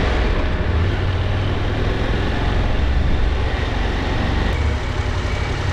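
KTM 890 Adventure's parallel-twin engine running steadily as the motorcycle rides slowly, heard from a helmet-mounted camera.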